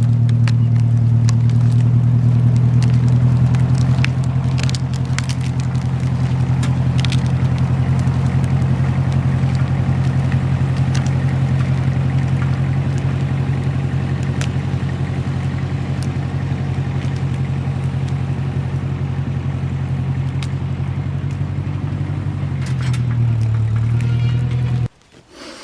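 Massey Ferguson tractor engine running steadily under load while skidding logs, with scattered cracks and clicks over it. The engine pitch dips briefly near the end, and the sound cuts off abruptly.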